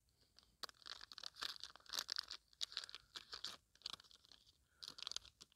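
A black-and-white street cat eating treats, with faint, irregular crunching and chewing sounds in quick runs broken by short pauses.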